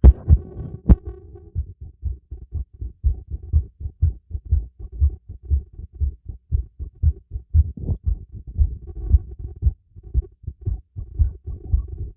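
Heartbeat heard through a stethoscope during light exercise: a steady run of low thumps. Two sharp knocks come near the start.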